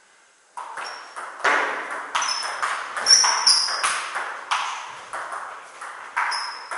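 Table tennis rally: the celluloid ball clicks off bats and the table in a steady back-and-forth, about two hits a second, starting about half a second in. Each hit echoes in the hall, and a few short high squeaks come between the hits.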